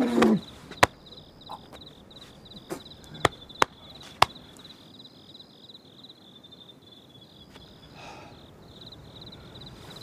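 Crickets chirping in a steady, high, fast-pulsing trill. A short vocal grunt comes right at the start, and a handful of sharp clicks follow in the first few seconds.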